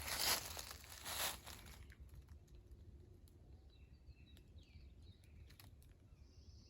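Footsteps crunching through dry leaf litter, two or three steps in the first second and a half, then stopping. Faint bird chirps follow.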